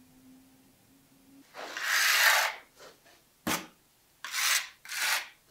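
Gritty scraping of a hand-held piece of tile against the concrete subfloor and mortar: one long scrape, a short click, then two shorter scrapes.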